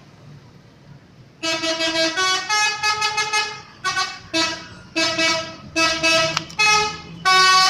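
Telolet horn of an Indonesian bus playing a tune: a series of horn notes of changing pitch, starting about a second and a half in, with short breaks between phrases. The last note, near the end, is the loudest. Before the tune there is a low traffic rumble.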